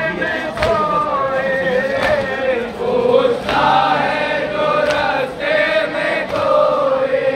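A crowd of men chanting a noha, a Shia lament, together in chorus in a slow, drawn-out melody. Sharp slaps cut through at irregular intervals, typical of matam, the beating of chests that goes with a noha.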